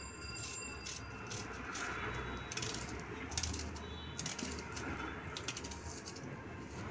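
Small kitchen knife cutting an onion held in the hand. Light, irregular clicks and taps come as the blade cuts through and the small pieces drop into a stainless-steel plate.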